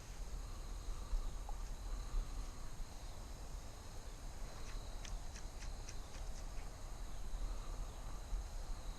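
Insects trilling steadily in a high-pitched chorus over a low rumble, with a few faint ticks about five to six seconds in.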